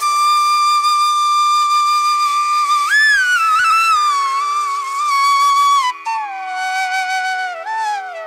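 Background music: a flute playing a slow melody over a steady drone. It holds a long note for about three seconds, then slides up and winds down in pitch through the rest.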